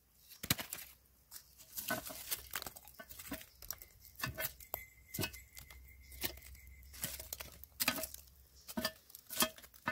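Burning charcoal chunks and ash being scraped and knocked off a cast-iron Dutch oven lid with a metal lid lifter: irregular scrapes, clinks and crunches of embers against the iron.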